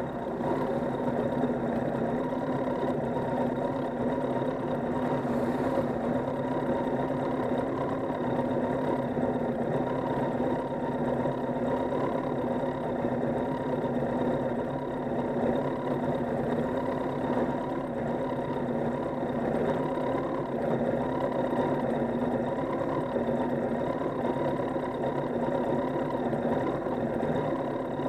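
Motorcycle engine idling steadily, an even mechanical running sound with no change in revs.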